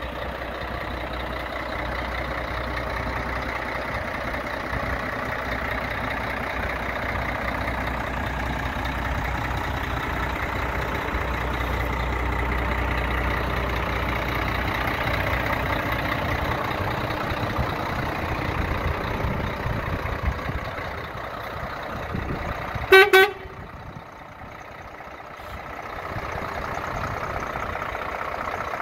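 Scania P114 truck's 11-litre straight-six diesel running as the truck rolls slowly past, with a steady rumble. About 23 seconds in comes one short horn toot, the loudest sound. After it the engine goes quieter for a couple of seconds, then picks up again.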